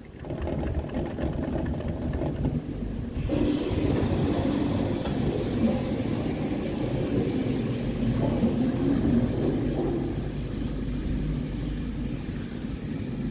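Doppelmayr detachable chairlift terminal machinery running as the chair passes through the station: a steady mechanical rumble and whir from the wheels and rollers carrying the chair. It starts abruptly as the chair enters the terminal and gets louder a few seconds in.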